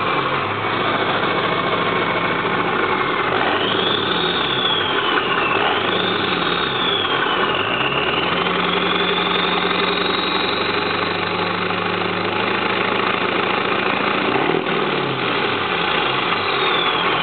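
Ford 7.3 L Powerstroke V8 turbo diesel running, heard close at its open 3½-inch exhaust tip. It is revved up and down a few times and held at a raised speed for several seconds in the middle, with a high turbo whistle rising and falling along with the revs.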